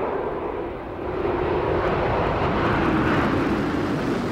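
Space Shuttle orbiter Columbia gliding low over the runway just before touchdown: a steady rushing roar of air over the unpowered orbiter, with a tone in it that slowly falls in pitch as it moves away.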